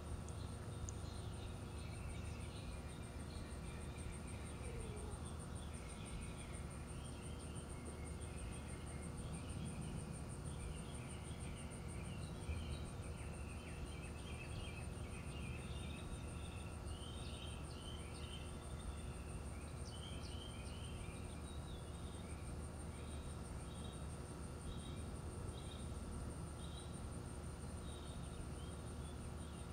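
Backyard ambience: a steady high, pulsing insect trill, with birds chirping over it and a low steady rumble underneath.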